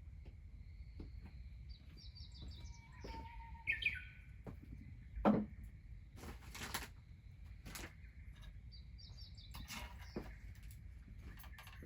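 Small birds chirping in quick runs of short high notes, against a faint steady high tone, with scattered sharp snaps, a louder knock about five seconds in and a brief rushing noise just after.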